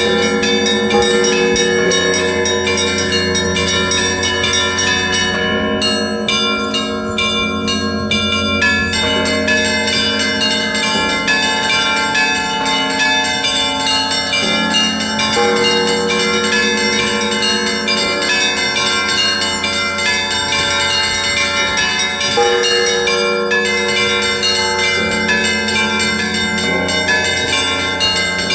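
Russian Orthodox monastery bells rung together in a continuous peal: many rapid strikes on smaller bells over the steady ring of larger bells.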